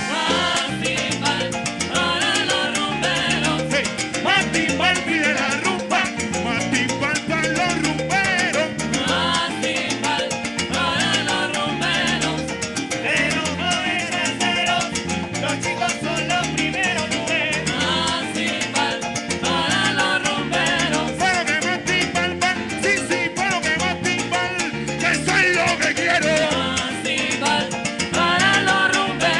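Live Latin dance band playing salsa, with singers' voices over drums and percussion, coming through the stage loudspeakers.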